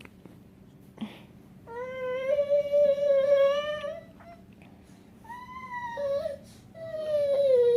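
Baby's drawn-out, high whining cries: one long wail of about two seconds, then two shorter ones near the end.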